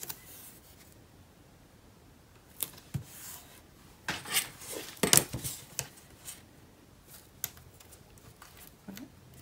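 Adhesive tape being pulled and torn while card stock is handled: a couple of sharp clicks, then a cluster of short rasping bursts in the middle, with lighter rustles after.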